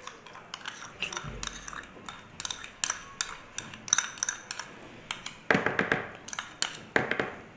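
A spoon clinking and scraping against a small bowl as yeast is tipped and tapped out into flour: an irregular run of light clicks and clinks, the sharpest ones in the second half.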